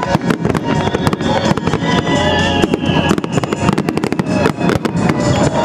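Fireworks going off in quick succession, many sharp bangs and crackles, over music with sustained tones.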